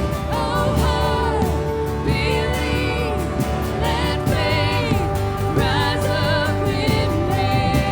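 Live worship band playing, with sung melody lines over sustained chords and a steady beat.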